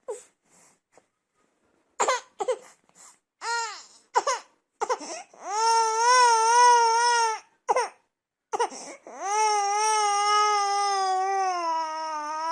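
Baby crying: a run of short, sharp, gasping cries, then two long wailing cries, the second held for several seconds.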